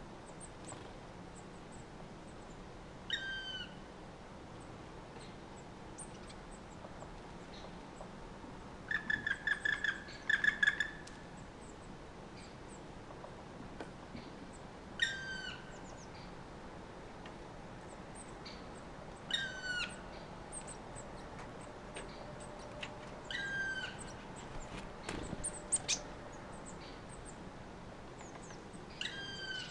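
A bird calling: a short, clear call that drops in pitch at its end, repeated every four to six seconds, with a quick run of about a dozen repeated notes around ten seconds in.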